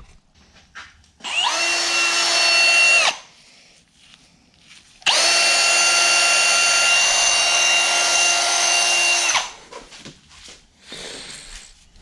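Handheld power drill running at steady speed in two bursts: a short one of about two seconds, then a longer one of about four seconds.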